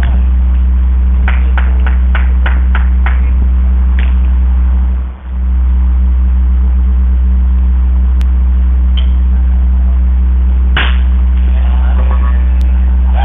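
A loud, steady low hum, with a quick run of about seven sharp clicks in the first few seconds and one sharp crack about eleven seconds in.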